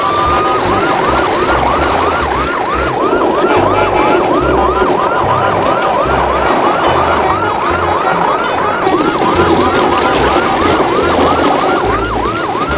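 Electronic siren in a fast yelp: a short rising sweep repeated about three times a second without a break, over a low rumble.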